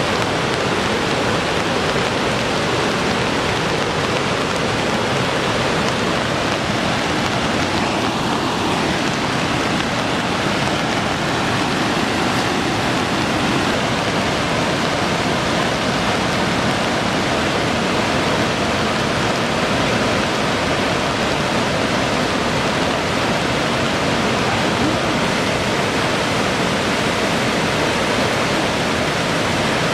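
Sogi Falls, a wide waterfall, rushing in an even, steady roar that does not let up.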